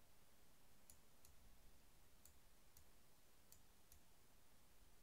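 Near silence with about six faint computer mouse clicks spread out, a few per second at most, as on-screen sliders are set.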